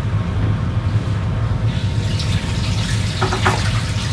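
Water running from a tap into a sink, a steady hiss that brightens about halfway through, over a constant low hum.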